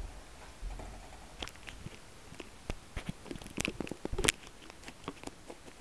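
Handling noise of a small keychain camera as it is picked up and turned: scattered clicks and rubbing of fingers and casing against its microphone, ending in a sharper knock about four seconds in.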